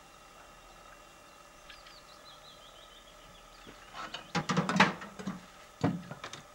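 A red squirrel gnawing a nut: a burst of sharp crunching clicks about four seconds in, and a shorter one near the end. Faint bird chirps before that.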